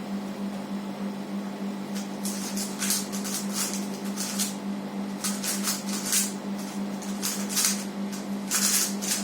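Rubik's cube being turned at speedsolving pace: rapid, irregular plastic clicking and clattering of the layers, starting about two seconds in and running for about seven seconds, over a steady low hum.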